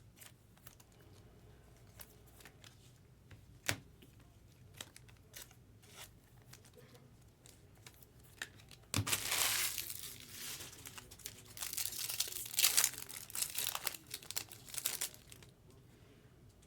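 Scattered light clicks of trading cards being handled, then, about nine seconds in, the foil wrapper of a card pack torn open and crinkled loudly for several seconds.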